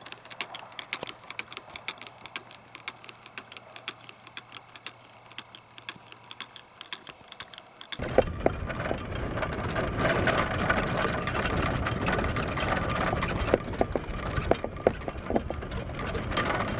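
Golf clubs clinking and rattling against each other in a carry bag, in quick irregular clicks. About eight seconds in this gives way to a louder, steady rumbling ride with knocks and rattles, as of a golf cart driving over the course.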